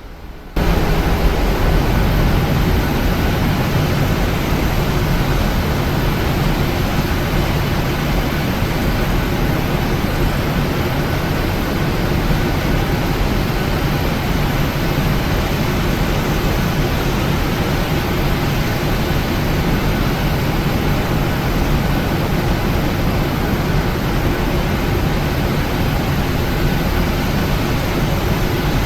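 Steady jet engine and airflow noise heard inside the cabin of a Boeing 737-900 on the ground after landing. It jumps sharply louder about half a second in and then holds steady, with a few faint steady tones under the roar.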